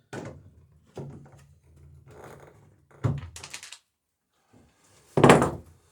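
Hammer knocking on rivets in a dory's planking, four uneven blows with the last one, near the end, the loudest.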